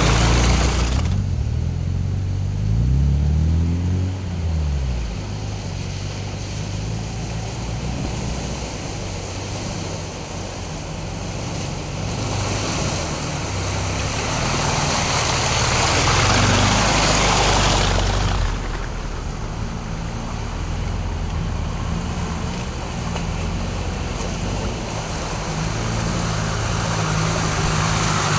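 An off-road 4x4's engine running through a forest puddle, with water splashing and rushing around the vehicle. The engine revs up and down a couple of seconds in, and the water rush is loudest about halfway through.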